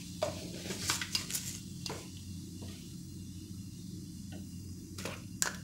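Cumin seeds crackling in a little hot oil in a steel frying pan: scattered sharp pops, about eight over a few seconds, over a steady low hum.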